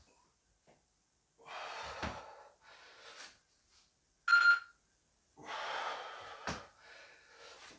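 A man breathing hard from exertion, in several long, noisy breaths. A short electronic beep sounds about halfway through and is the loudest thing.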